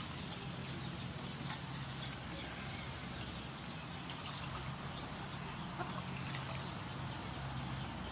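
Hands squeezing wet grated coconut in a stainless steel bowl to press out coconut milk: soft wet squelching and dripping with faint scattered ticks, over a steady low hum.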